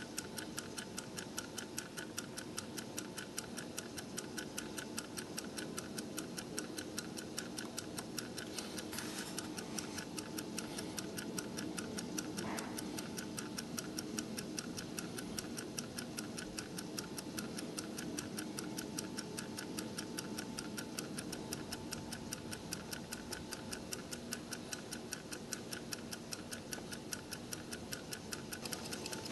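A Longines mechanical stopwatch movement ticking rapidly and evenly as its escapement and balance wheel beat.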